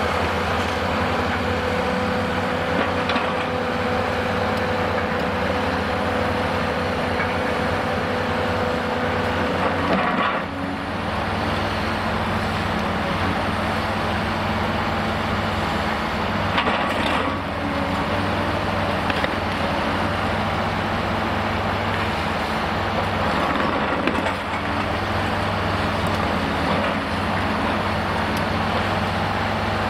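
Cat 390D high-reach demolition excavator's C18 diesel engine running steadily under hydraulic load, with a steady whine through the first part. A few sharp cracks come as its shears break concrete and chunks fall.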